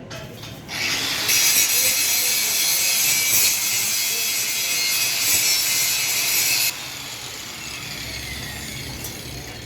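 Angle grinder grinding metal, a harsh hiss that starts under a second in and stops abruptly about six seconds later, after which the disc winds down with a falling whine.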